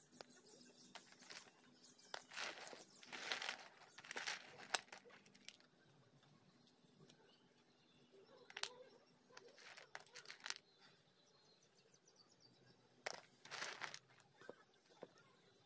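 Dry edible clay chunks being handled in a plate, the pieces scraping and shifting against each other in short, irregular bursts of noise.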